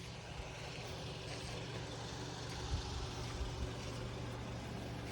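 A vehicle engine running steadily: a low, even hum, with a few faint low thumps about halfway through.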